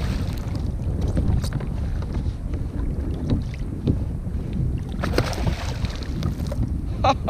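Wind rumbling on the microphone over choppy water, with water splashing up against a kayak. There is a burst of spray at the start and a longer splash about five seconds in.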